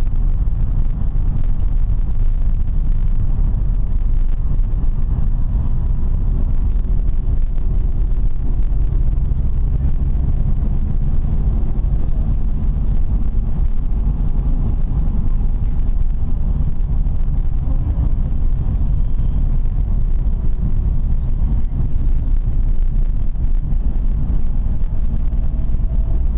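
Steady low rumble of a moving road vehicle heard from inside its cabin: engine and road noise while driving.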